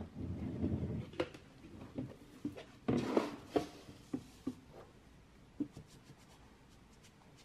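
Cat litter being scattered and scraped by hand: a run of short rustles and clicks, with a longer rush of grit about three seconds in, thinning out toward the end.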